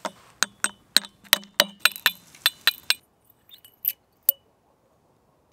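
Glass light bulb's metal screw base knocked repeatedly against a birch log: about a dozen sharp glassy clinks, roughly four a second, as the base is broken open to hollow out the bulb. After a pause come two faint clinks as the glass inner stem is drawn out.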